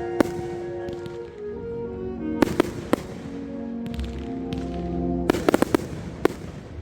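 Firework shells bursting with sharp bangs: one just after the start, two about a third of the way in, and a quick cluster of several about three-quarters through. Music with held notes plays under them.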